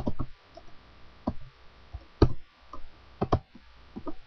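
Computer keyboard typing: about ten separate keystroke clicks at an uneven pace, a few of them in quick pairs.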